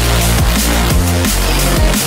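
Electronic dance music: a kick drum about twice a second over a sustained heavy bassline, with bright synth and cymbal sounds on top.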